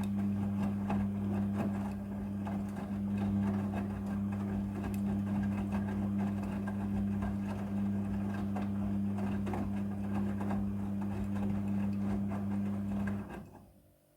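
Midea front-loading washing machine running, with a steady electric hum and faint clicking and rattling, stopping about 13 seconds in.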